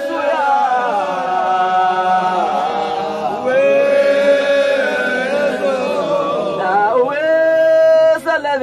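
Male voices chanting a Sufi dhikr nasheed in Arabic, unaccompanied, drawing the syllables out into long ornamented held notes.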